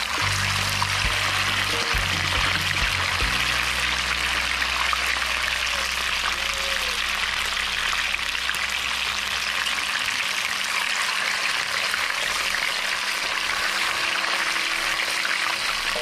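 Jack fish frying in hot oil in a pan, a steady sizzle.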